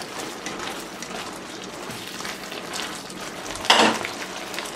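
Sweet and sour sauce with chicken and vegetables bubbling at a steady boil in a pan, with a short clatter against the pan near the end.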